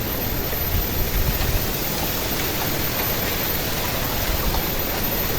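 Strong wind blowing over the microphone: a steady rushing noise with a few low buffeting rumbles about a second in.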